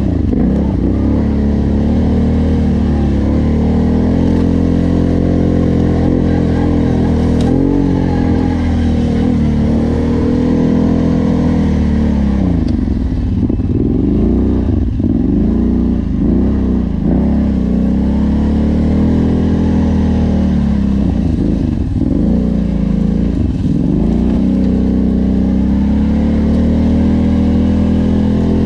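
Off-road vehicle engine running steadily under way, with the throttle let off and opened again several times in the middle, the engine note dipping and rising each time.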